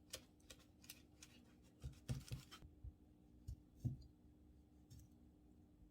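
Faint kitchen preparation sounds: scattered light clicks and soft knocks, with a short scrape about two seconds in.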